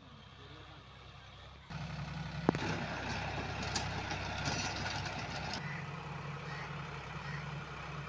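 A steady engine hum with a noisy hiss over it, starting abruptly about two seconds in, with one sharp click shortly after.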